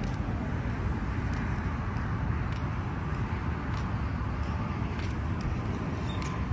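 Traxxas Sledge RC monster truck driving on pavement: a steady low rumble of its tyres and drivetrain, with a few faint ticks about a second apart.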